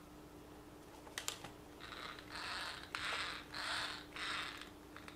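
Gear train and differentials of a Xinlehong Q903 RC car being run in short goes: a couple of clicks about a second in, then four short whirring bursts of about half a second each. It is a test of whether freshly added grease quiets the differentials' grinding, and the grease has helped a little.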